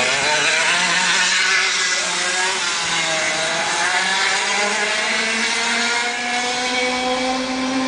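Go-kart engine running hard on the track. Its pitch sags a little early on, then climbs steadily over the next few seconds as the kart accelerates.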